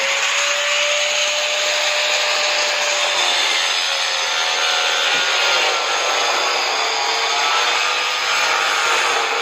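Electric power tool running steadily, a continuous hiss with a faint held whine that wavers slightly in pitch.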